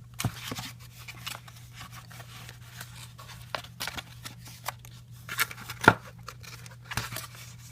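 Stiff cardboard being folded and handled by hand: irregular crisp creases, rustles and sharp clicks, the loudest a little before six seconds in.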